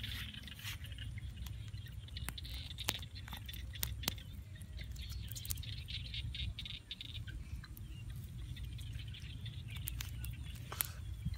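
Light rustling and scattered small clicks from a nylon cast net handled close by as a small fish is worked free of the mesh by hand. A low steady rumble runs underneath, with faint chirping in the first half.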